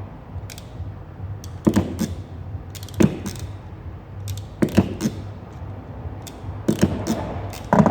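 Hand tools and small plastic wiring parts being handled while preparing a car stereo's wiring harness: about half a dozen sharp clicks and clacks at irregular intervals, over a low steady hum.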